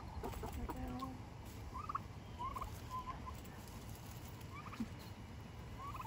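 Domestic turkeys calling: a series of short, rising high-pitched chirps roughly every second, with a lower call in the first second.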